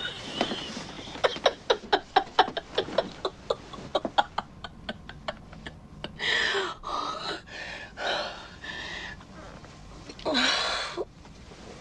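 Two people having sex: quick short rhythmic sounds, about five a second, then heavy breaths and gasps in the second half.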